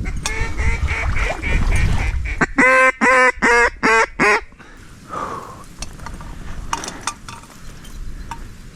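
Duck quacking: a quick run of quacks, then five loud, evenly spaced quacks about halfway through. A few light clicks follow.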